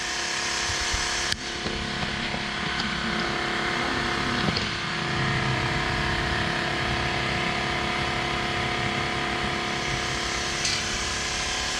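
Battery-powered portable tyre inflator running steadily, its small motor and pump humming as it pumps air into a motorcycle tyre. There is a sharp click about a second in.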